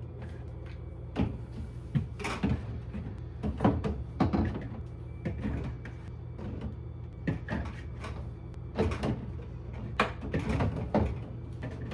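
Irregular clunks and knocks of Dr Pepper sodas being set one by one into a refrigerator door shelf, a dozen or so across the stretch.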